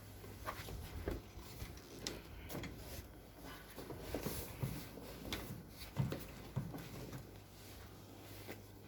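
Soft scattered knocks and rustling of people moving about and handling things, over a faint steady hum, with one louder knock about six seconds in.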